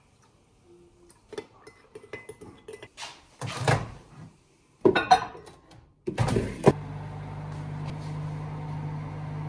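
Light kitchen clinks and knocks, then a microwave oven door banging and the microwave starting. About two-thirds of the way in it settles into a steady, even hum as it runs.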